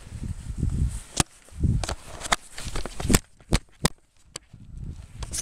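Footsteps in powder snow, with irregular low rumbles and sharp clicks from a handheld camera moving as it records.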